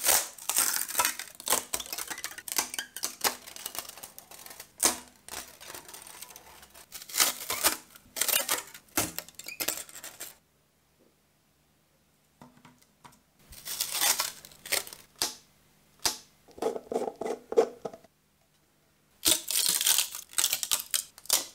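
Crunchy crackling and popping of plastic 3D prints being peeled off a flexible Creality printer build sheet. It comes in several bursts of crackle and clicks, with short silent gaps between the clips.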